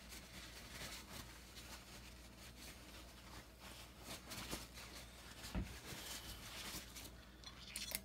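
Faint rustling and rubbing of a paper towel in a rubber-gloved hand wiping around a kitchen faucet, with a knock about five and a half seconds in and a short click near the end.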